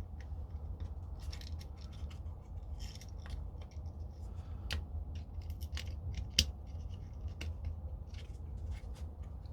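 Small plastic parts of an airsoft high-capacity magazine being handled and fitted back together: scattered light clicks and scrapes as a feed wheel and its spring are set into place, with one sharper click about six and a half seconds in.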